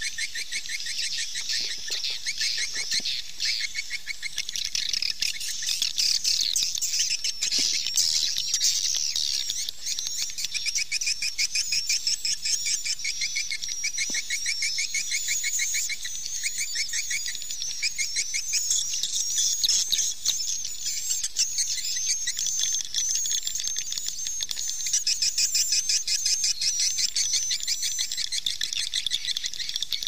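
Swiftlets twittering: a dense chorus of rapid chirps and buzzing trills. This is the call sound used to draw swiftlets to a nesting house.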